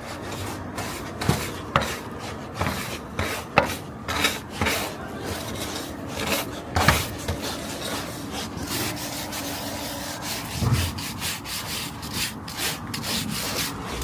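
A brush scrubbing and scraping pigeon droppings off a surface, in many short, irregular strokes.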